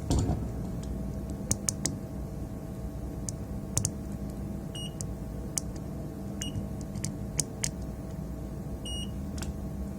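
Multimeter on continuity test giving three brief high beeps as its probes bridge points on the PS4 power supply board, with scattered light clicks of the probe tips tapping the board.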